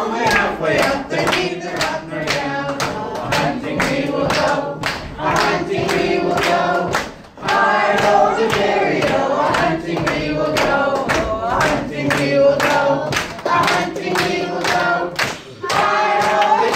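A group of voices singing a folk dance song unaccompanied, with hands clapping a steady beat, about three claps a second. The singing and clapping break off briefly about seven seconds in.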